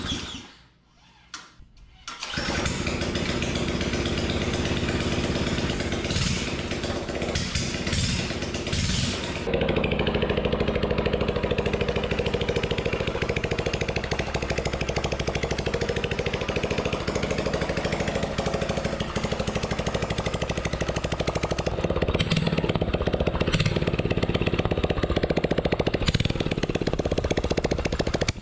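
A mini bike's 179cc snowblower engine, running with no exhaust pipe on its bare exhaust port, is pull-started on the recoil starter. It catches about two seconds in and runs loudly, unevenly for the first several seconds and then steadier.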